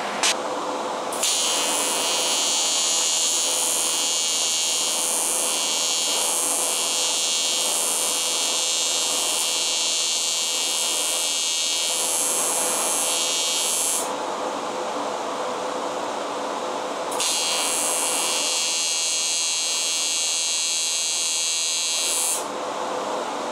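AC TIG welding arc from a PrimeWeld 225X on 1/8-inch aluminum, a steady high buzz. It runs for about thirteen seconds, breaks off, then strikes again for about five seconds near the end.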